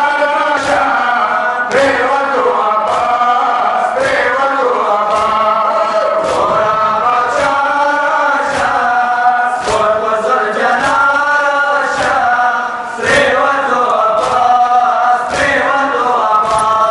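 A crowd of men chanting a noha lament in unison, with rhythmic chest-beating (matam) strikes landing about once a second.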